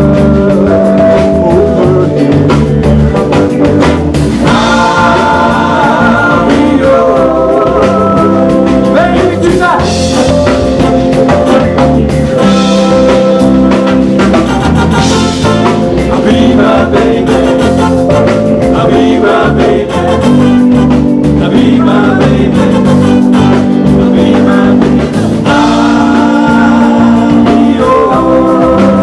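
A live band playing a song, with a singer's voice over the instruments.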